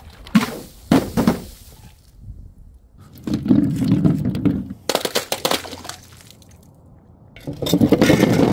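Glass bottles smashing and crunching: a few sharp knocks in the first second and a half, a longer crunching crash about three seconds in, a brief crackle of shards around five seconds, and another heavy crash near the end.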